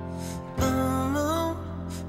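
Background music: a slow song with steady accompaniment, and a sung phrase coming in about half a second in.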